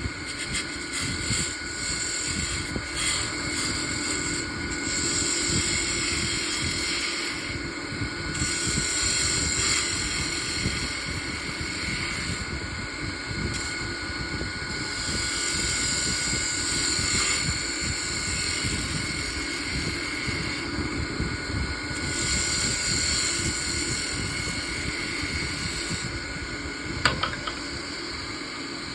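Wood lathe running steadily, with the hiss of a tool cutting the spinning wooden handle, stopping briefly several times as the tool comes off the wood.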